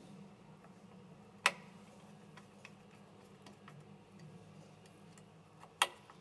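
Small hard clicks of an Allen key screwdriver on the bolts of a 3D printer's print-head fan bracket as they are tightened: two sharp clicks about four seconds apart, with a few fainter ticks between.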